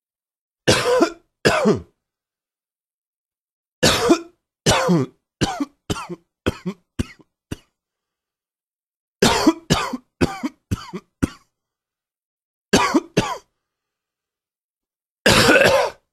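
A person coughing in bouts: two coughs, then two runs of six or seven coughs that get shorter and weaker, then two more and a longer final cough, with dead silence between them.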